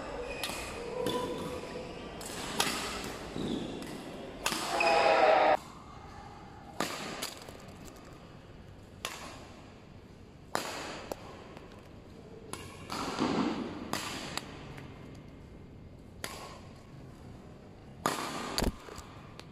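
Badminton racket striking shuttlecocks, sharp pings every second or two, some followed closely by the shuttle landing on the court. A louder, drawn-out sound lasting about a second comes about five seconds in.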